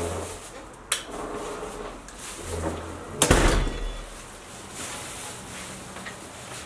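A sharp click about a second in, then a heavy thud with a low rumble about three seconds in as the apartment's front door is shut.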